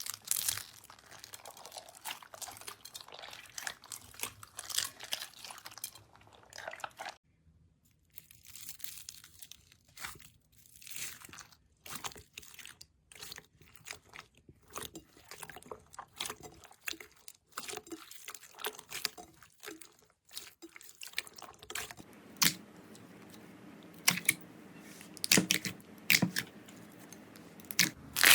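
Slime being pressed and poked by hand, making crunching, crackling pops. It comes in several separate takes: a dense crackle, then a run of distinct clicks, then louder single crunches near the end.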